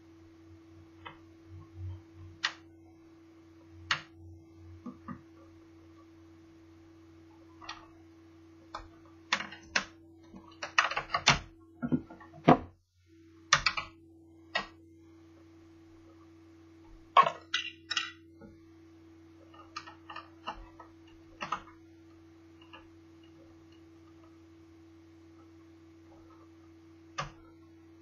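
Scattered clicks, taps and knocks from laptop parts and small tools being handled during disassembly, thickest in two busy spells around the middle, over a steady electrical hum.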